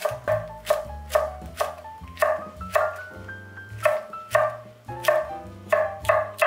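Chef's knife slicing a green chili pepper into rings on a wooden cutting board, each cut a sharp knock of the blade on the board, about two a second, over light background music.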